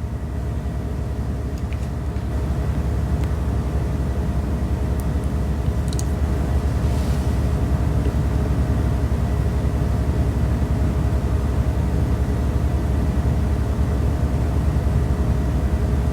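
Steady low rumble with a faint, even hum above it, getting slightly louder about two seconds in.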